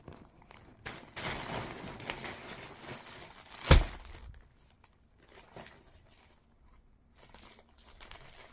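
Plastic packaging crinkling and rustling as a plastic-wrapped parcel is handled, with one loud thump a little under four seconds in and quieter rustles after.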